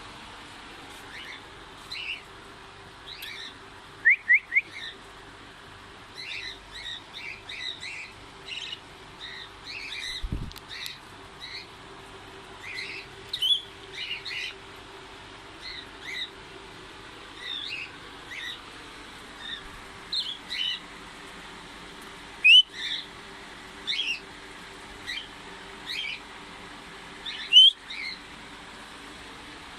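Small pet parrots, cockatiels, lovebirds and budgies, chirping in short calls again and again. Three quick, louder calls come about four seconds in, and two more single loud, sharp calls come later on.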